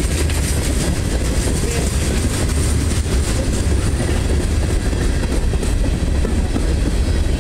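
A mixed freight train's cars (boxcars, tank cars and covered hoppers) rolling past close by. The steel wheels make a loud, steady rumble on the rails.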